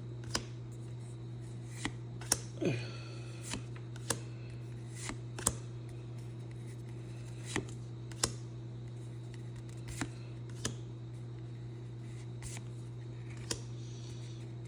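Trading cards being handled and flipped through one at a time: scattered soft clicks and flicks every second or two, over a steady low hum.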